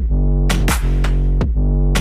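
Electronic background music with a deep, held bass line and sharp drum hits.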